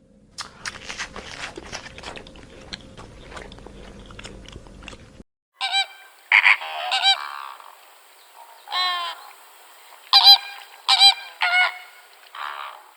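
Farmyard waterfowl calling: a series of about eight loud, short, pitched calls starting about halfway through. Before that, about five seconds of dense clicking and rustling with a low hum that cuts off suddenly.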